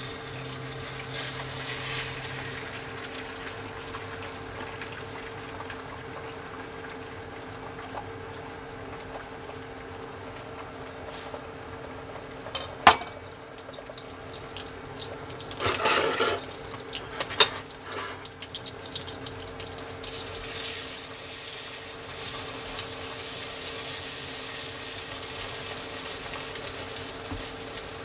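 Beaten eggs sizzling in hot oil in a nonstick wok on an induction cooktop, over the cooktop's steady hum. There is a sharp knock about halfway through and a brief clatter a few seconds later, and the sizzle grows louder over the last third.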